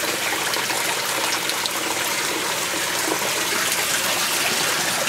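Steady rush of running water in an aquaponics system, with no change in level.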